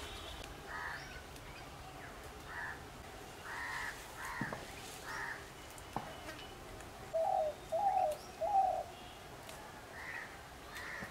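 Crows cawing: a string of single harsh caws, then three louder, lower calls in quick succession about seven to nine seconds in. Two sharp clicks come in between.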